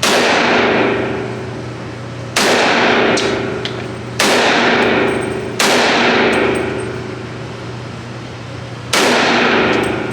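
Five gunshots at an uneven pace, each a sharp crack that rings out and dies away over a second or more.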